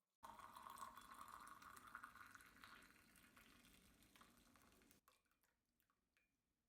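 Faint splashing of just-boiled water being poured into glass canning jars to sterilize them. It lasts about three seconds and is followed by near silence.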